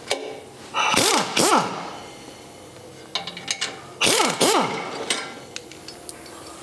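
Pneumatic impact wrench undoing an exhaust mounting nut. It comes in two short bursts, about a second in and again about four seconds in, each a quick double pull of the trigger with the motor speed rising and falling. A few short metallic clicks fall between the bursts.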